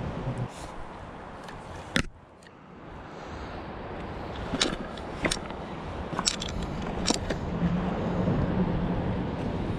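Handling of a spinning rod and reel: several sharp clicks and taps, the loudest about two seconds in, over a steady outdoor rush of moving water and air.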